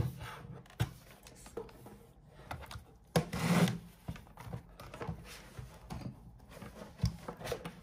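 A laptop being set down and slid on a wooden desk, with light rubbing and a few small knocks as it and a portable monitor are handled. The loudest sound is a short scrape about three seconds in.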